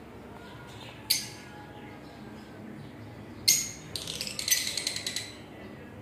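Lovebirds calling: a shrill chirp about a second in, another at three and a half seconds, then a quick run of chirps lasting over a second.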